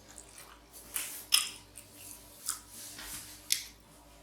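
Close-up eating sounds of someone chewing a mouthful of cheesy macaroni and cheese, with about five short mouth smacks spread through.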